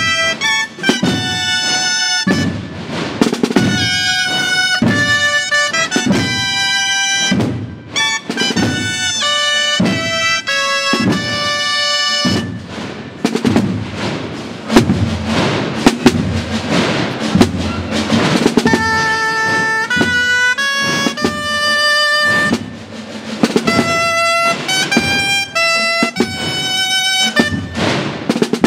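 A group of dulzainas, loud double-reed Valencian shawms, playing a processional melody in unison, with drum beats along with it. The tune comes in phrases with brief pauses between them.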